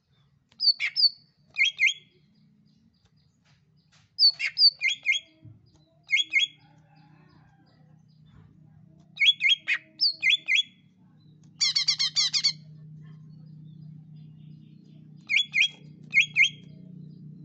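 Cucak ijo (greater green leafbird) calling in short, loud bursts of two to four sharp, sweeping chirps every few seconds, with one rapid, dense trill about twelve seconds in. A low steady hum sits underneath and grows louder near the end.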